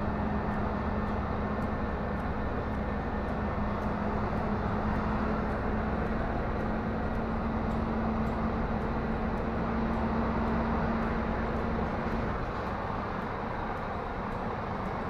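Scania R440 truck's diesel engine running steadily, heard from inside the cab while the truck rolls slowly. A steady hum in the engine sound drops away about twelve seconds in.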